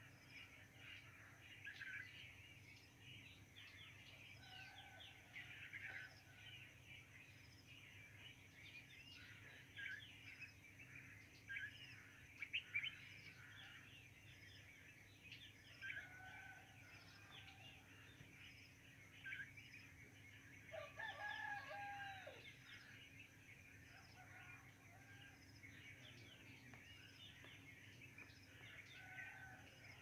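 Faint dawn chorus of many small birds chirping and twittering continuously. About two-thirds of the way through, a rooster crows once.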